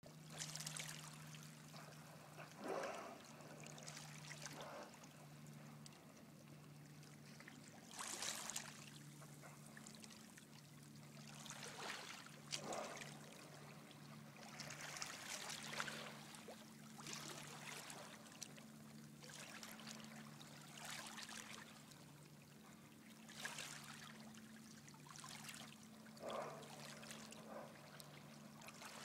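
Small waves lapping and washing against shoreline rocks, in irregular surges every second or few, over a faint low hum that cuts in and out.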